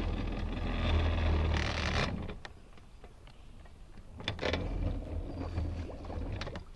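Low steady hum of an electric trolling motor running for about two seconds, cutting out, then running again for a couple of seconds. A few light clicks sound in between.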